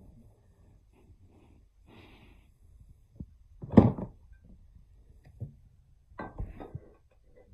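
Handling knocks as a rifle upper receiver is set down on a table beside a lower receiver: one loud thump about four seconds in, then a few lighter knocks and rustles.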